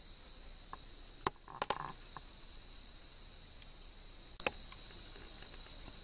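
Steady high-pitched insect drone in the forest, with a few sharp clicks and snaps, a cluster about a second and a half in and one more near four and a half seconds.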